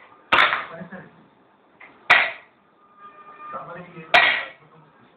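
Three sharp smacks about two seconds apart, a toddler hitting the hard floor.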